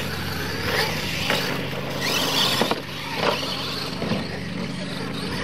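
Radio-controlled monster trucks racing on dirt: a high-pitched motor whine that rises and falls under full throttle, over a steady rush of tyres and dirt, with a couple of sharp knocks in the first half.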